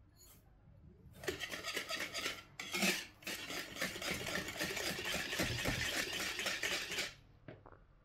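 Wire whisk beating banana cake batter in a wooden bowl: a fast, steady run of clicking, scraping strokes that starts about a second in, pauses briefly, and stops about a second before the end.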